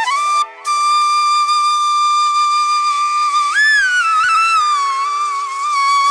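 Instrumental background music: one melodic line holding long notes and sliding between pitches, over a steady drone.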